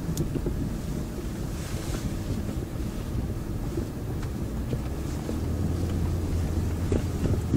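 Cabin noise of a BMW 520i E39 on the move: a low engine and road rumble from its straight-six, with the engine's low hum growing stronger about five seconds in.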